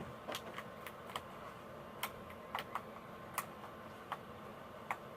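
Homemade slime being kneaded by hand, giving about ten irregular sharp clicks and pops.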